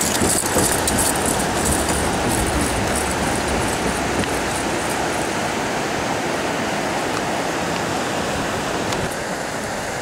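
Steady rushing of a mountain creek under the footbridge. Over roughly the first half comes a light, irregular clatter of climbing gear and quick footfalls as the climbers run off.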